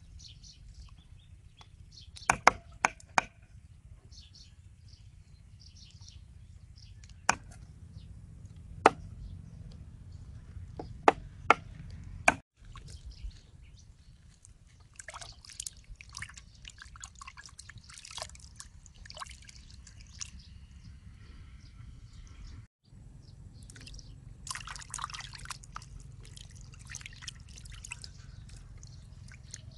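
A few sharp clicks of knives on wooden chopping boards. Then hands swish and splash raw shrimp about in a steel bowl of water, in several splashy stretches.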